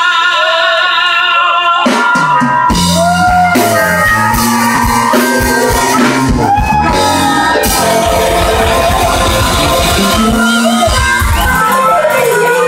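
Live blues band playing: electric guitar, saxophone, harmonicas and drum kit, with singing. A held chord for the first two seconds or so, then the full band comes in with the drums.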